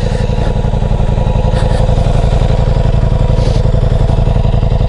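Ducati Diavel V4's 1158 cc V4 engine idling steadily through its four-outlet exhaust, an even, unchanging beat.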